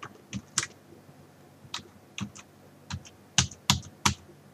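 Computer keyboard keys pressed one at a time as a password is typed: about ten sharp key clicks at an uneven, unhurried pace.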